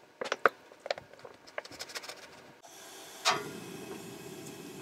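Close handling sounds during meal preparation in a small space: a few light clicks and knocks, then a steady rasping scrape that starts sharply about three seconds in and cuts off suddenly near the end.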